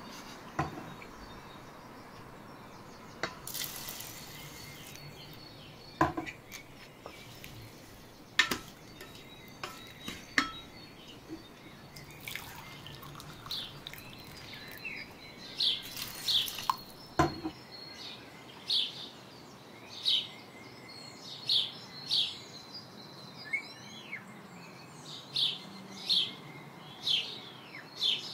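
Scattered knocks and clicks of a wooden spoon against a rice cooker's pot, with a short splash of water, then small birds chirping from about halfway in, short calls repeating about once a second.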